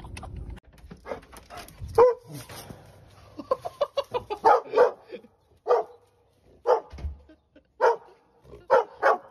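Dog barking repeatedly in short, sharp barks: a quick run of barks, then single barks about once a second.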